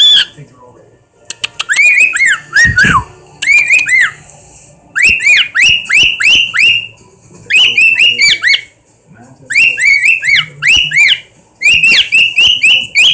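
Pet bird giving rapid runs of short, shrill whistled calls, each sliding sharply downward in pitch, about four a second, in bursts with brief pauses. A few sharp clicks come about a second and a half in, and one lower, longer call slides down about three seconds in.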